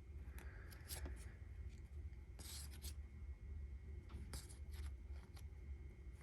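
Baseball trading cards sliding against one another as a stack is flipped through by hand: a few short, soft rubbing swishes, the longest about two and a half seconds in, over a low steady hum.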